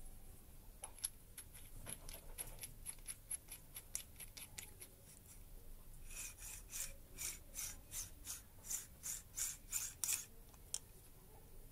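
Metal drill chuck turned by hand, making a quick run of small metallic clicks and scrapes, about four a second. The clicks start faint, fade, then come back louder for about four seconds near the end.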